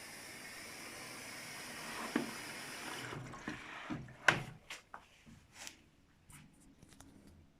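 Luxor WM 1042 washing machine taking in water for its softener rinse: a steady rush of water that dies away after three to four seconds. A few sharp clicks and knocks follow.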